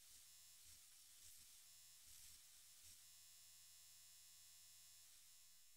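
Near silence: faint steady hum and hiss of the recording.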